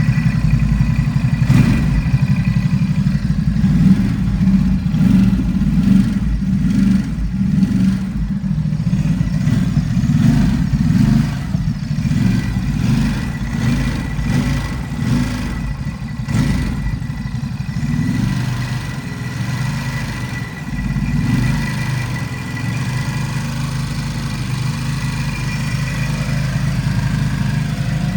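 Ducati SuperSport 950 S L-twin engine running near idle with a clattering rattle. The revs rise and fall unevenly for the first twenty-odd seconds, then settle to a steady idle. The owner is unsure whether the rattle is normal.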